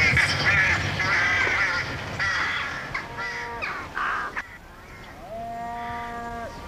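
Animal calls: a run of harsh, overlapping bird calls, then a few long, level drawn-out calls.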